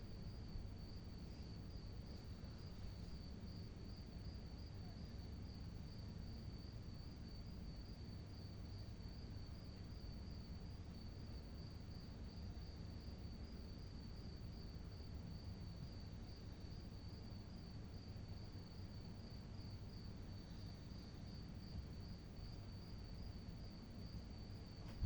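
A cricket trilling without a break: one high, steady tone with a fine rapid pulse, over a low background rumble.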